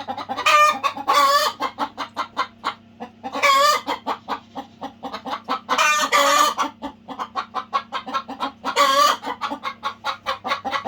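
Domestic chickens clucking in quick, rapid clucks, with four longer, louder calls spaced about three seconds apart. A steady low hum runs underneath.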